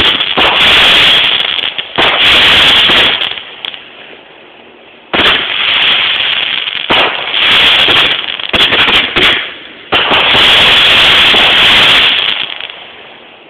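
Consumer fireworks going off in a string of loud bangs, one every two to three seconds, each dying away over a second or two.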